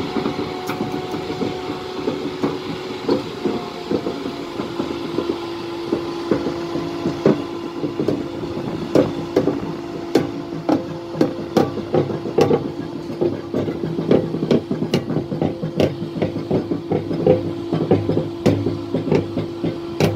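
Slow-moving locomotives being shunted: wheels knock and click irregularly over rail joints and points, more densely in the second half, over a steady engine hum.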